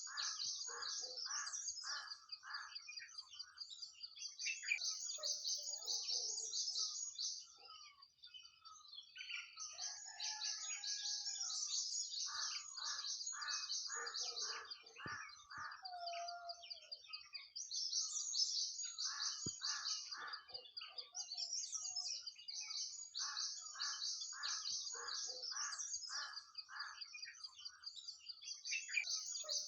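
Songbirds singing: a dense high chorus of chirps and trills over runs of fast repeated lower notes, about three a second, that break off and start again several times.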